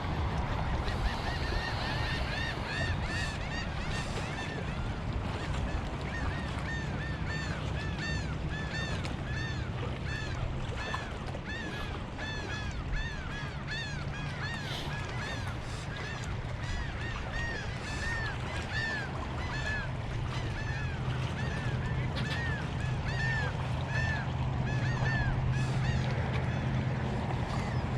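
A bird calling over and over in short, arched, rising-and-falling notes, about two a second, over a steady low rumble.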